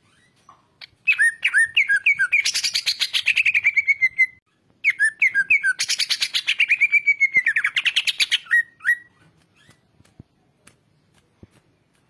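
Greater green leafbird (cucak ijo) singing two long song phrases, the second starting about five seconds in. Each opens with a few warbled notes and runs into a fast trill of rapidly repeated notes that falls in pitch.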